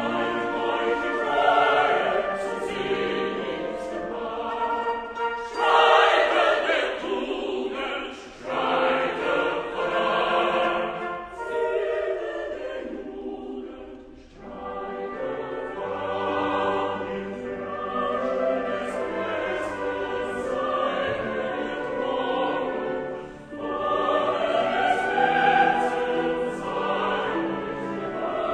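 Background music: a choir singing sustained classical-style lines, with swelling and fading phrases.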